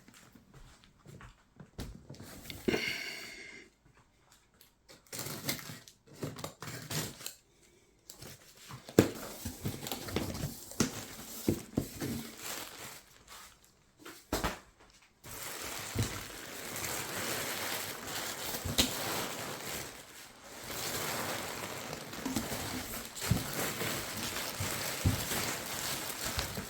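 Handling and unwrapping of packaging: crinkling and rustling with scattered knocks and clicks. The sound comes in separate bursts at first, then becomes a more continuous rustle with frequent small clicks from about halfway through.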